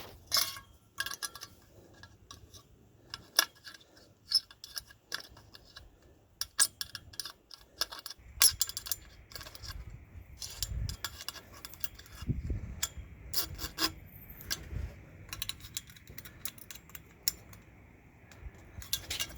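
Small metal clicks and scrapes, irregular and spread throughout, as a hook tool works the spring pin out of a pop-up canopy leg, with low bumps from handling the leg.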